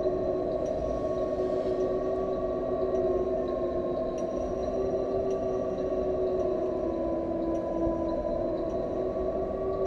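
Dark ambient drone: several sustained tones that drift slowly in pitch over a noisy low rumble, with faint scattered ticks.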